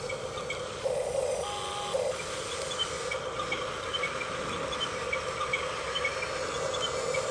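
Electric motors and gearboxes of a remote-control toy excavator or bulldozer whirring steadily, with a louder whine about a second in.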